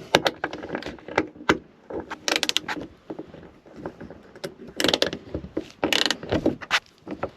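Clicks, knocks and scraping of a billet aluminum Freedom top lock being worked into a Jeep Wrangler hardtop latch, which is tight and does not want to fully engage. There are clusters of quick clicks about two seconds in and again around five and six seconds in.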